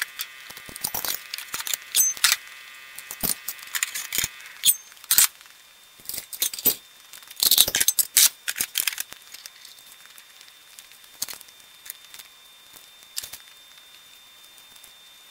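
Metal aircraft weighing-scale platforms being slid and set onto the wooden shelves of a plywood cabinet: a run of knocks, clatters and scrapes, busiest in the first nine seconds, then a few scattered clicks.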